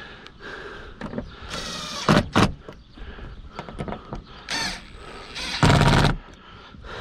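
Covers of a Coleman Mach 3 rooftop RV air conditioner being slid and hooked into place: scraping, with two sharp knocks about two seconds in and the loudest, longer scrape near six seconds.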